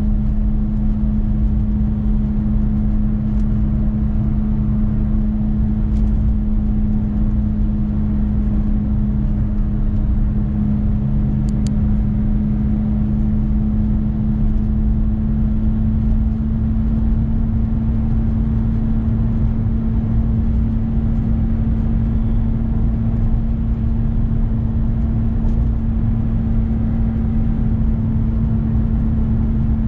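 Renault Clio Symbol heard from inside the cabin while cruising at a steady speed: a constant engine drone over road noise, holding level throughout.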